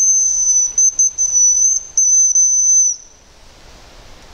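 Hazel grouse lure (манок) blown to call birds: a thin, very high whistle held for about three seconds with a few brief breaks, imitating the hazel grouse's call, then it stops.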